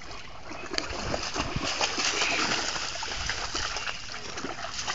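Water splashing and sloshing in irregular bursts as a German shepherd moves through it, loudest a couple of seconds in.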